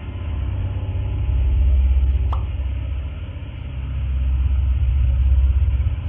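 Low rumble through a doorbell camera's microphone, swelling and fading twice, with one short high chirp a little over two seconds in.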